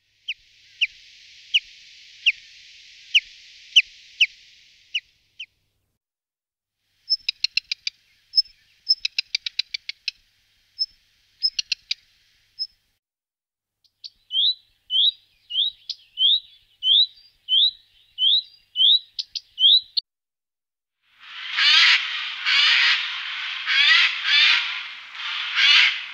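Recordings of several songbirds in turn, with short pauses between: first evenly spaced short rising call notes, then a fast ticking phrase, then a run of rising whistled notes about two a second, and finally a louder, harsh scratchy chattering.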